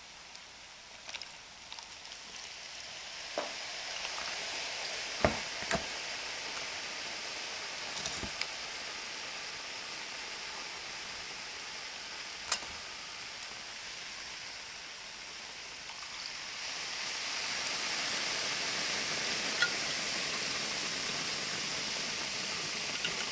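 Dry ice bubbling and fizzing in 95% ethanol, a steady sizzling hiss that grows louder over the last several seconds, with a few sharp clicks. The bubbling shows the bath is still cooling toward its working temperature.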